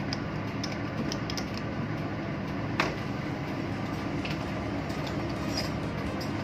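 Steady machinery drone, with scattered light clicks and taps of hand tools and parts on the speed dial indicator and one sharper click about three seconds in.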